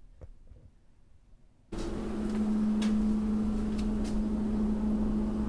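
A steady, loud mechanical hum that starts abruptly about a second and a half in, with a few faint clicks over it.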